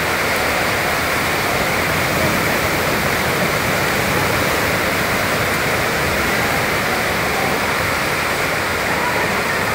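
Heavy rain driven by very strong storm wind: a steady, loud rush of noise.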